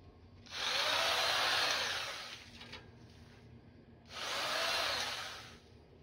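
Takagi electric mini hedge trimmer running in two bursts, the first about two seconds long and the second about a second and a half, cutting through weeds and grass. Each burst opens with a short rising whine as the motor spins up.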